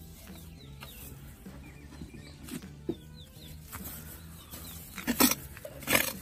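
Short, faint bird-like calls, of the kind fowl make when clucking, scattered over a steady low background. Two louder, sudden scuffing noises come about five and six seconds in.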